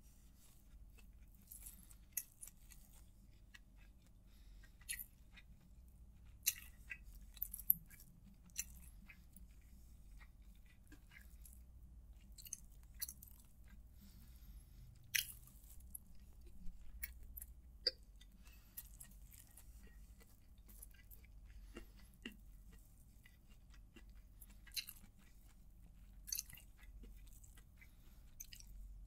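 Faint, close-miked chewing of a mouthful of biryani, with scattered soft clicks and crackles as fingers mix the rice on a plastic sheet.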